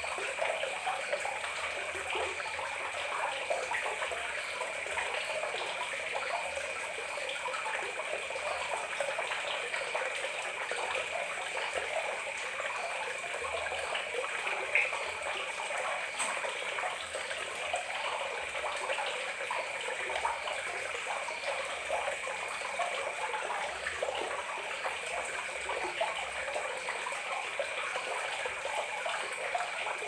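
Water trickling and splashing in a steady, continuous flow, with a faint steady high whine beneath it.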